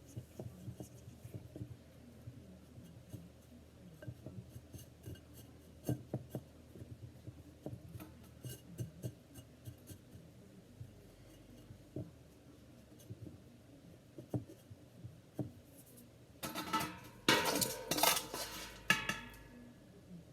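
Potting soil and a small plant pot being handled during repotting: scattered light taps and clicks, then a louder stretch of scraping and rustling near the end as soil is worked in around the plant.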